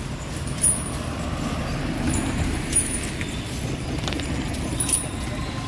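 A steady low rumble with short, high metallic jingles at irregular intervals, about one every half second to a second.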